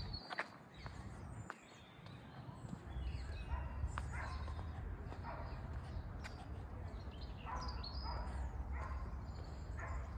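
Outdoor ambience: a steady low rumble, with about four short animal calls spread through the second half.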